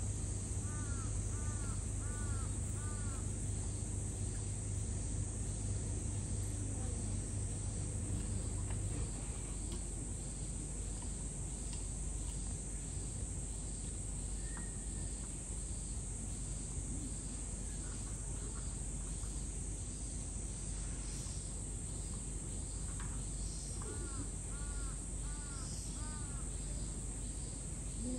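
A crow calling four caws in a row near the start and another run of four near the end, over a steady high-pitched insect buzz. A low hum stops about nine seconds in.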